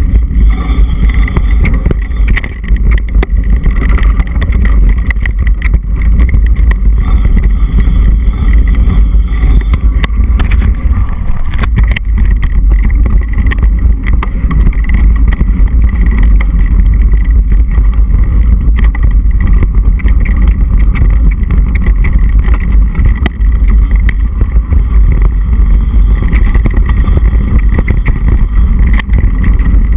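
Wind buffeting the microphone of an action camera riding on a mountain bike descending a dirt trail: a loud, steady low rumble, with frequent knocks and rattles as the bike bounces over bumps.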